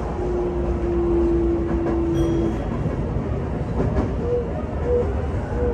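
Running noise inside the cab of a 5300-series electric commuter train: wheel and rail rumble with a steady electric motor whine that slowly falls in pitch and stops about two and a half seconds in. A short high beep sounds near the middle, and a few sharp clicks of wheels over rail joints follow, while another train passes on the next track.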